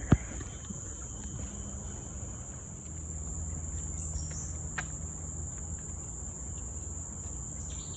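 Steady high-pitched drone of rainforest insects, with a low rumble of distant traffic beneath it. A single sharp knock sounds just after the start.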